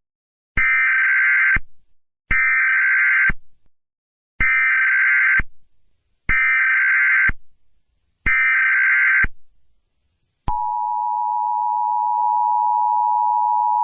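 Emergency Alert System tones. First come five one-second bursts of the SAME digital header's high warbling data tones, about two seconds apart. About ten and a half seconds in, the steady two-tone EAS attention signal starts, marking the start of a tornado warning alert.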